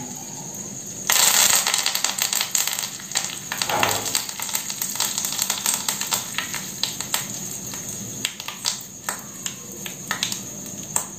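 Curry leaves hitting hot mustard oil in a small tadka pan: a sudden loud sizzle about a second in, then crackling and popping from the tempering (mustard seeds, urad dal, red chillies) that gradually thins out.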